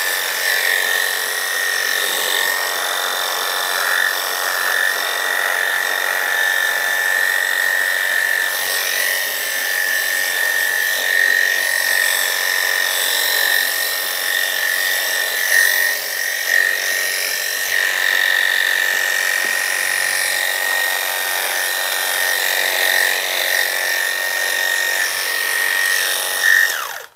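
Electric dog grooming clippers running steadily with a high whine, shaving a standard poodle's coat.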